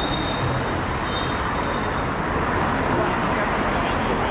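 Steady, loud background noise, an unbroken hiss and rumble, with a few faint thin high tones now and then.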